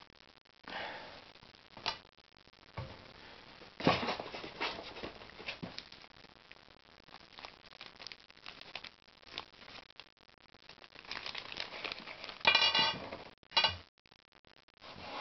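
Handling noises from a die-cast scale truck model and its packaging: scattered clicks, taps and rustles as parts are moved and fitted. Near the end there is a brief squeaky sound, followed by a shorter one.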